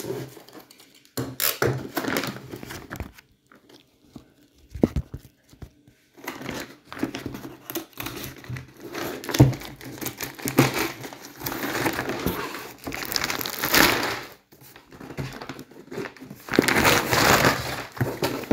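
Black plastic parcel wrapping and packing tape being torn open and crumpled by hand: irregular crinkling and ripping, with a lull a few seconds in and the loudest bursts near the end.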